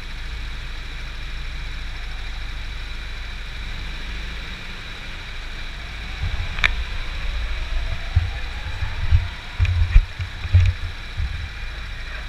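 Go-kart engines idling in a steady low running, with a sharp click about six and a half seconds in and several uneven low thumps in the second half.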